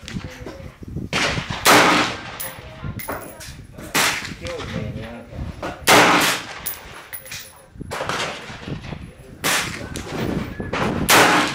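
AR-15 rifle fired in slow, single aimed shots, sharp cracks a few seconds apart, the loudest about 2, 6 and 11 seconds in.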